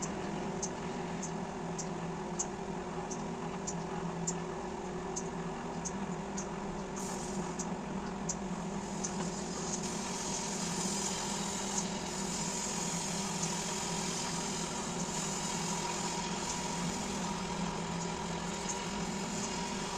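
Microwave oven running with a steady hum and a faint regular ticking, about three ticks every two seconds. After about seven seconds a brighter hiss joins the hum.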